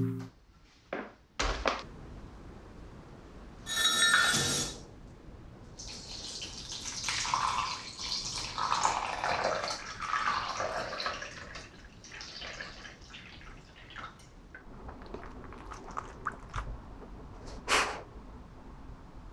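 Dry split peas poured into a glass measuring cup, a short ringing clatter. Then water is poured from a filter pitcher into the cup over the peas for about six seconds. A single sharp knock comes near the end.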